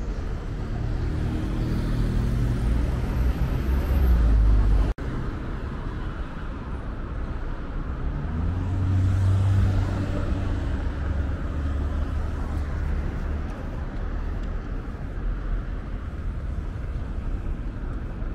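Road traffic: cars driving past on a city highway, with engine and tyre rumble that swells as vehicles go by. The loudest passes come in the first few seconds and again around nine to ten seconds in, and the sound breaks off abruptly for an instant about five seconds in.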